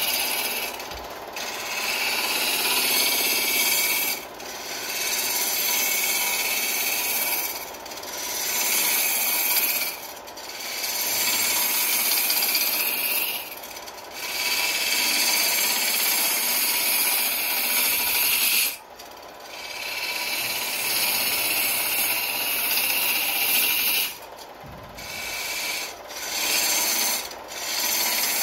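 Turning gouge cutting into wood spinning on a lathe: a hissing scrape in cuts a few seconds long, broken by about eight short pauses.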